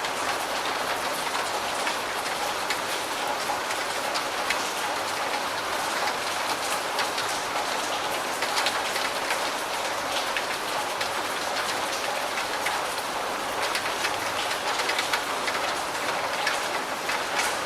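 Steady rain falling on a roof, a dense, even hiss of many small drop impacts.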